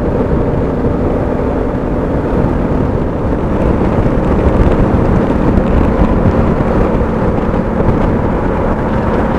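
A 2016 Honda Africa Twin's parallel-twin engine running steadily at highway speed, mixed with wind and road noise rushing past the bike-mounted microphone.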